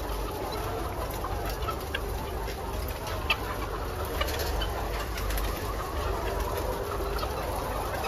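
A large flock of caged laying hens clucking and murmuring together in a steady din, over a low steady hum, with a few short sharp clicks scattered through it.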